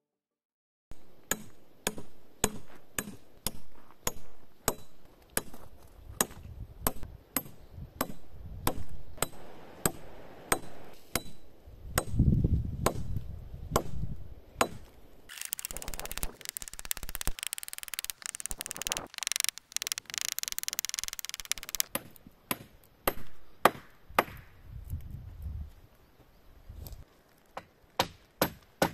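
A small hatchet chopping into a log, with sharp strikes at about two a second. In the middle, several seconds of rough steady noise interrupt the strikes, and near the end they come faster.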